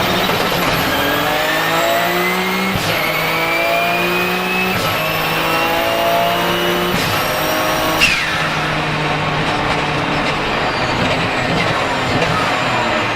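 Onboard sound of a Porsche 997 GT2 RSR's twin-turbo 3.9-litre flat-six accelerating hard through three quick upshifts of its sequential gearbox, the turbos' high whistle rising with the revs in each gear. About eight seconds in the throttle lifts with a sharp pop and the blow-off valve's falling whoosh, and the engine runs off-load after it.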